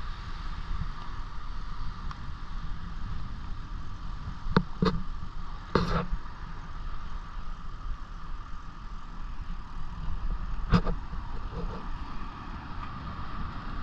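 Steady outdoor rush with wind buffeting the microphone as a low rumble. A few short knocks, three a little before halfway and one more later on.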